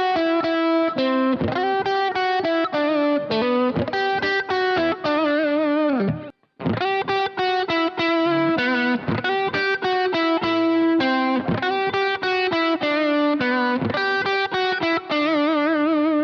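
Washburn Sonamaster S1 electric guitar, a Strat-style guitar with three single-coil pickups, played through an overdriven amp: a lead line of picked notes, some held and shaken with vibrato. There is a brief stop about six and a half seconds in.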